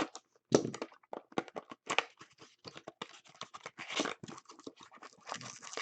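Hockey card packs and cards being handled: crinkling wrapper, tearing and rustling, with many short clicks and scrapes of cards sliding against each other.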